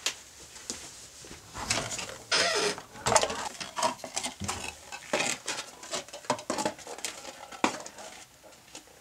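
Footsteps and scuffing of slip-on shoes on a stone step: a string of irregular taps and scrapes, busiest in the first half.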